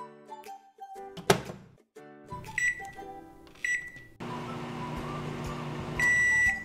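Samsung microwave oven: the door shuts with a knock about a second in, two short button beeps follow, and from about four seconds in the oven runs with a steady hum. A long, loud high beep comes near the end.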